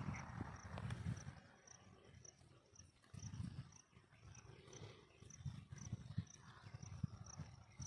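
Wind buffeting the microphone in irregular low rumbling gusts, with an insect chirping steadily in the background at about three high chirps a second.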